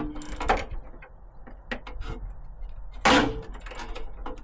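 Hand tools on corroded bolts in a Land Rover Defender's front end: small metallic clicks and knocks, with two loud, briefly ringing metal clanks, at the start and about three seconds in.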